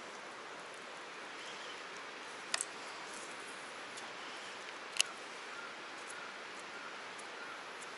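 Steady outdoor background hiss, with a sharp double click about two and a half seconds in and a single sharp click about five seconds in.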